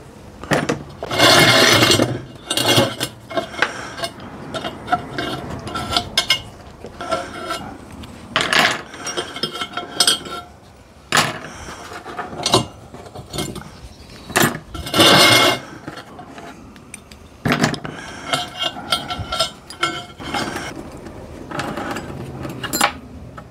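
Cut metal spokes from a Honda GL1000 Goldwing wheel clinking and rattling as they are pulled out of the hub and rim by hand and tossed onto a pile. Small clinks run throughout, with several louder clattering rings, the loudest about a second in and again about fifteen seconds in.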